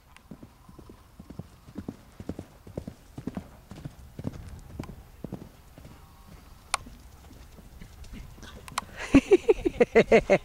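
Hoofbeats of a loose horse cantering on arena dirt in a steady rhythm. About nine seconds in comes a loud, pulsing whinny.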